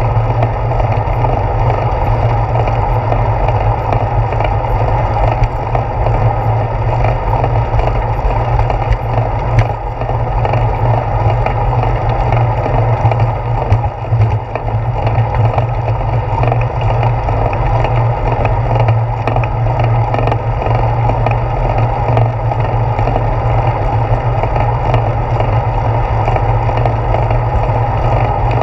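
Steady wind and road rumble picked up by a handlebar-mounted GoPro on a moving bicycle, with a couple of brief knocks from bumps in the road.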